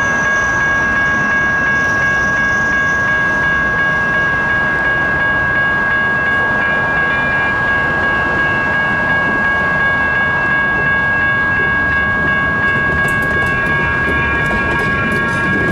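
Electronic railroad crossing bells, including a GS Type 1 E-Bell, ringing steadily while the crossing is active. Near the end, sharp clicks and a building low rumble come in as a Siemens Duewag U2A light rail train reaches the crossing.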